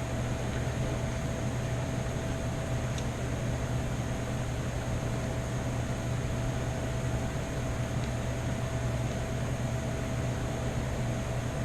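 A steady machine hum and hiss with a faint high whine, unchanging throughout, like a fan or other running appliance in the room.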